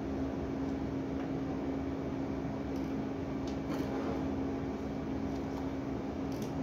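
A steady machine hum with one constant low tone, like a fan or appliance running, with a few faint light clicks twice near the middle and end.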